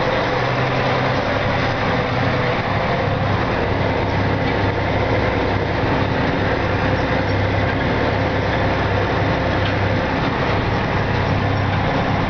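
Tractor engine running steadily under load while pulling a disk harrow through a field.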